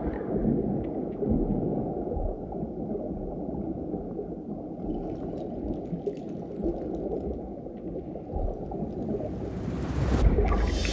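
Low, murky rumbling drone of an underwater ambience bed in a documentary soundtrack. It swells into a rising whoosh near the end.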